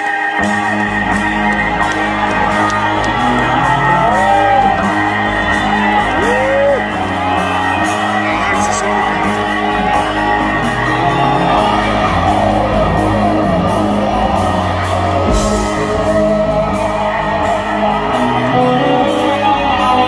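Rock band playing live through a concert PA, with heavy bass notes coming in about half a second in under keyboards and guitar. Whistles and shouts come from the crowd through the first several seconds.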